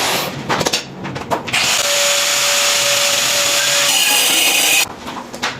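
A handheld power tool runs steadily for about three seconds and then stops abruptly, with a few sharp knocks just before it starts.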